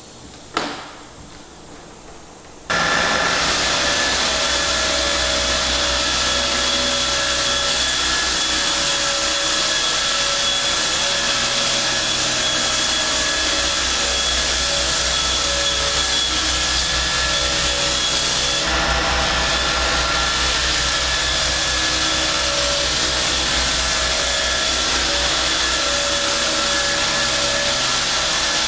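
A short knock, then a large electric machine switches on nearly three seconds in and runs steadily with a constant whine.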